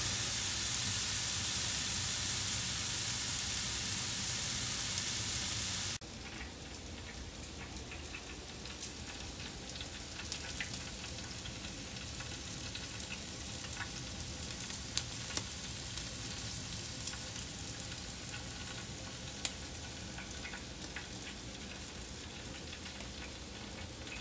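Meat sizzling on an electric smokeless grill: a loud steady sizzle for the first six seconds, then, after a sudden drop, a quieter sizzle with scattered pops and crackles.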